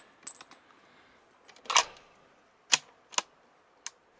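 Five or so sharp clicks and knocks of equipment being handled close to the microphone, with the loudest a little under two seconds in.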